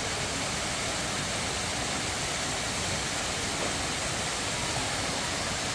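The Grand Cascade's fountains at Peterhof: water jets falling and splashing in a steady, even rush.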